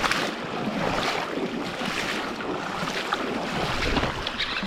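Steady rushing noise of wind buffeting the microphone, swelling and easing irregularly, over moving river water.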